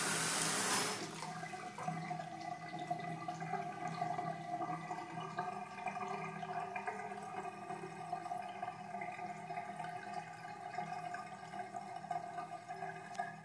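A bathroom sink tap running into the basin: a strong gushing flow that is turned down about a second in, leaving a thin stream splashing onto the drain with a steady faint tone under it.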